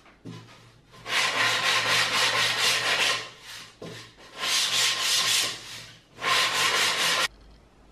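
Hand sanding the edge of a plywood shelf board with a sanding block: quick back-and-forth rasping strokes in three bursts that cut off suddenly near the end.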